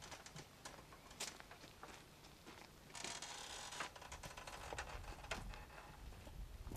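Faint footsteps crunching on a gravel path, heard as scattered light clicks, with a short rustling hiss about three seconds in.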